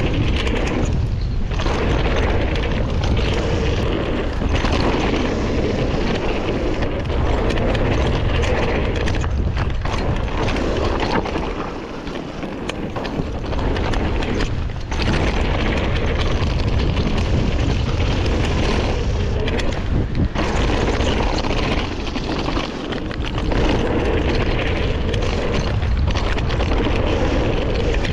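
Wind buffeting the microphone of a camera riding along on a mountain bike going fast down a dirt flow trail, mixed with tyre and trail noise. The rush eases briefly about twelve seconds in.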